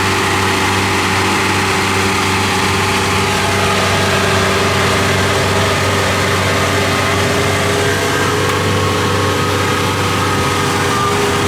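Diesel engine running steadily at a constant speed, a low even hum with no revving.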